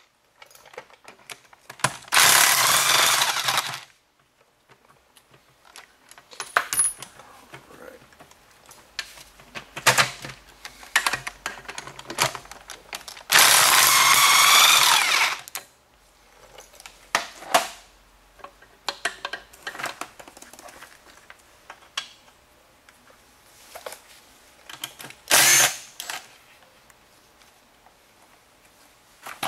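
A DeWalt power drill with a socket spinning out transmission case bolts in three runs, two of them about two seconds long and a short one near the end. Light metallic clinks and taps of bolts and tools come between the runs.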